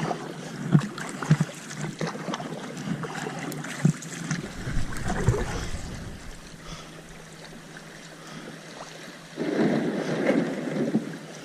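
Kayak paddle strokes splashing in the water, with wind noise on the microphone; a louder rush of noise comes in about nine and a half seconds in.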